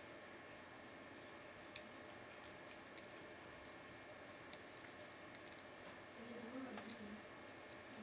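Faint, irregular metallic clicks of a lock pick working the pins of a 60 mm cross-key (cruciform) padlock, the pins spread on four sides of the keyway; about ten scattered ticks over a low steady hiss.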